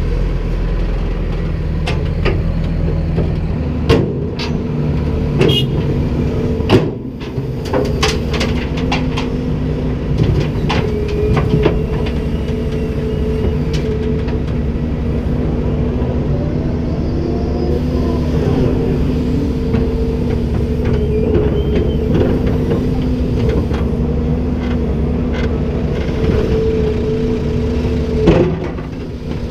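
Komatsu PC290-10 excavator running, its diesel engine making a steady hum under a pitched whine that shifts slightly now and then. There are sharp knocks about four and seven seconds in and again near the end.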